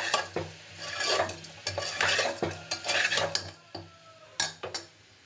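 Metal ladle stirring and scraping a thick beetroot and masala mixture against the sides of a pressure cooker, in repeated strokes with a light sizzle. The stirring stops about three and a half seconds in, followed by a few sharp taps of the ladle.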